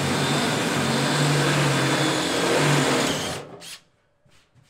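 Cordless drill with a stepped 'Christmas tree' bit drilling through the smoker cabinet's sheet steel, running steadily for about three and a half seconds. It then stops, followed by a few short bursts.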